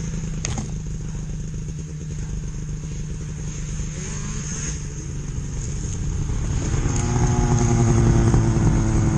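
Snowmobile engines running with a steady hum, and another snowmobile pulling up, getting louder from about seven seconds in.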